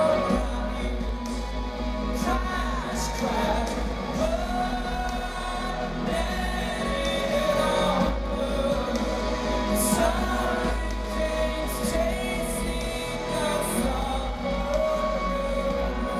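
Rock band playing live, with a sung vocal melody over steady low bass.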